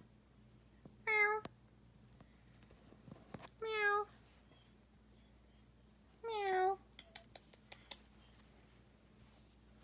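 Domestic cat meowing three times, short calls a couple of seconds apart, each dipping slightly in pitch at the end, followed by a few light clicks.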